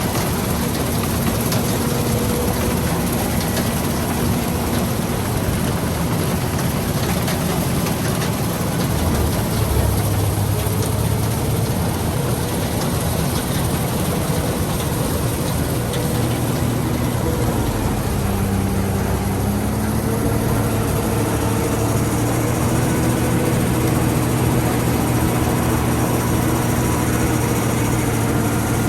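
Combine harvester running steadily, engine and machinery together, with its engine note dipping briefly and coming back up a little past halfway.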